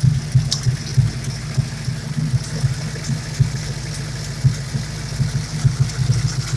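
Car engine idling roughly and unevenly with its mass airflow (MAF) sensor unplugged; the idle is not steady.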